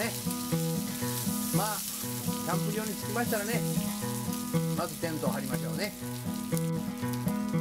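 Offal sizzling and frying hard in an uncoated COCOPan frying pan on a gas burner, stirred and turned with tongs and chopsticks, over background music with a stepping bass line.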